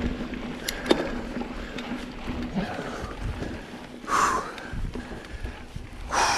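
Mountain bike, a Specialized Stumpjumper, rolling over a dirt singletrack trail with a steady rumble of tyres and frame rattle and a couple of sharp knocks about a second in. The rider gives two loud huffing breaths, one about four seconds in and one near the end.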